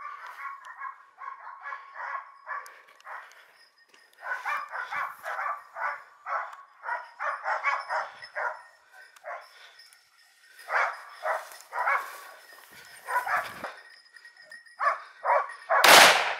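Dogs barking rapidly and repeatedly in quick runs. Near the end, a single loud gunshot cracks out over the barking.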